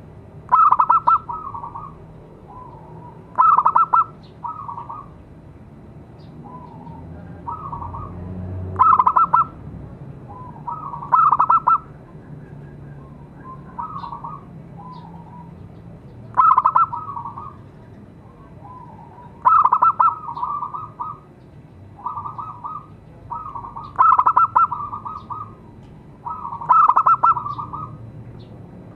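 Zebra doves cooing: loud, rolling coo phrases every few seconds, with fainter coos between them.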